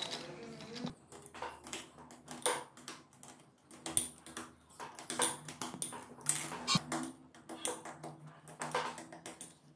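Irregular metallic clicks and taps of a socket wrench on the camshaft-cap bolts of a Honda CBR250 MC22 four-cylinder cylinder head, as the bolts are fitted and tightened.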